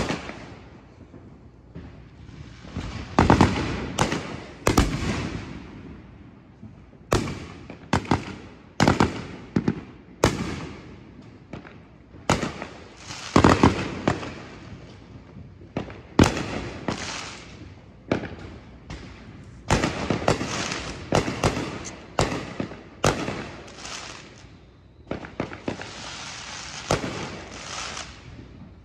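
Aerial consumer fireworks going off around a residential neighborhood: an irregular, continuous run of sharp bangs, each trailing off in echo. A denser patch of crackling comes near the end.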